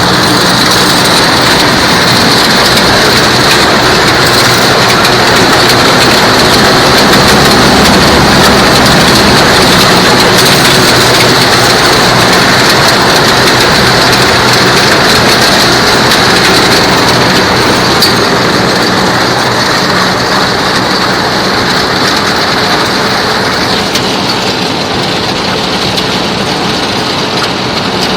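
Claas Arion tractor engine running steadily while pulling a Grimme SE 75-30 potato harvester, with the harvester's machinery noise mixed in. The sound gets a little quieter and duller near the end.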